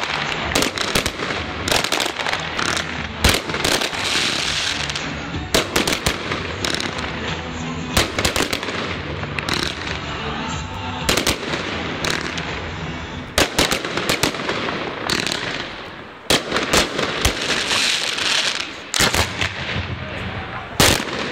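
Fireworks display going off: many sharp bangs at irregular intervals, with stretches of dense crackling about four and eighteen seconds in.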